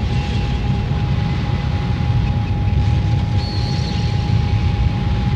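Dense, steady noise drone on an experimental tape recording built from storm recordings, hair clippers, a VCR and live electronics. A heavy rumble sits underneath and a single tone is held steadily over it, and a brief high whine comes in about three and a half seconds in.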